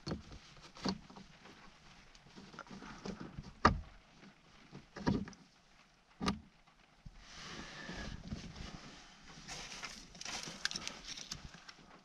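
Sharp metal clicks and knocks, about five of them spread over the first six seconds, as a new ignition lock cylinder is twisted and pushed into its housing in a Mercedes 190E steering column. After that come a few seconds of scratchy scraping and rustling with small clicks, from working at the lock.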